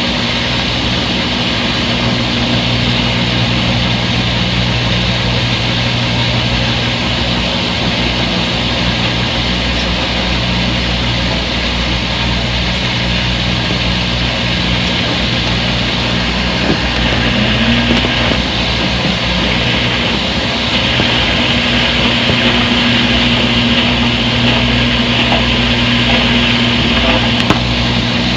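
Front-load washing machine on its spin cycle, drain pump motor whirring: a steady low hum over a hiss of water, getting a little louder about two-thirds of the way in.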